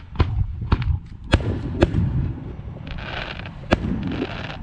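Aerial firework shells bursting: about five sharp bangs, each under a second or two apart, over a low rumble, with a hissing crackle of sparks starting about three seconds in.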